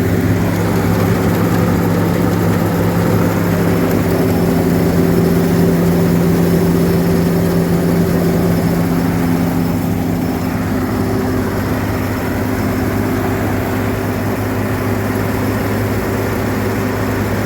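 Combine harvester running steadily out of gear, its engine and threshing works turning to clear a blockage of damp crop. The pitch shifts slightly about halfway through.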